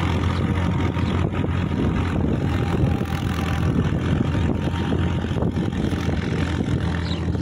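Diesel tractor engine running steadily under load while its rotary tiller churns the soil.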